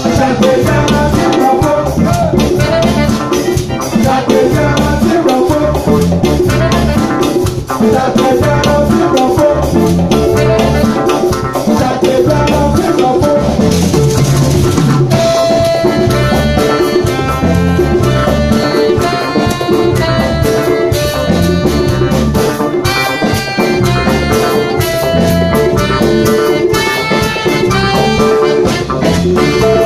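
Live highlife/Afrobeat band playing: drum kit, bass and guitar groove with a brass section. About halfway through the horns enter playing a riff of held notes over the rhythm.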